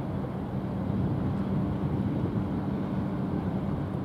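Steady low drone of a small coastal cargo ship's diesel engine as the ship passes, with a hiss of wind and water behind it.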